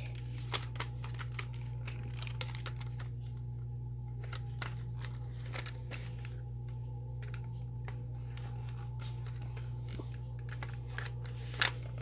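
Scattered small plastic clicks and rattles of a toy gun being handled while its reloading action is worked, with a sharper click about half a second in and a louder one near the end, over a steady low hum.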